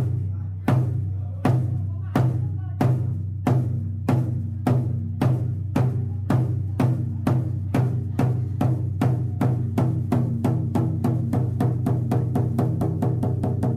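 A large ceremonial drum struck in a roll that speeds up steadily, from about one beat a second to several a second, with a low ringing tone carrying under the beats, as in a ritual drum roll opening a ceremony.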